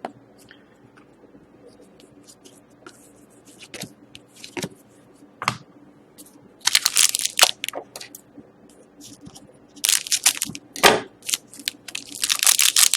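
A trading card pack's wrapper being torn open and crinkled by hand. Small handling clicks come first, then loud tearing and crinkling in three bouts over the last half.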